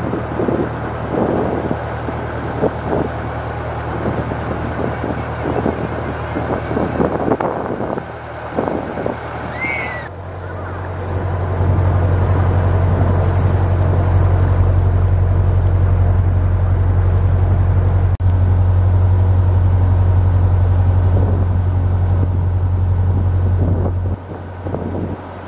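Narrowboat engine running steadily under way, with wind buffeting the microphone. About ten seconds in the sound jumps to a much louder, deeper steady engine hum, which drops back near the end.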